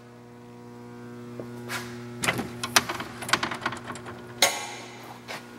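Steady electrical hum. From about two seconds in come a series of light clicks and knocks, with a louder clatter near the end.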